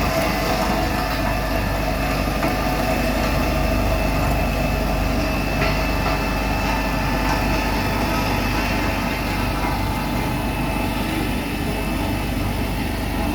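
Road roller's diesel engine running steadily, with a continuous low rumble.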